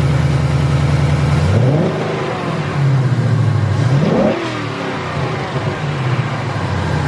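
Ford Mustang GT's Gen 3 Coyote 5.0 L V8 idling, blipped twice: the revs rise and fall back about a second and a half in, and again about four seconds in.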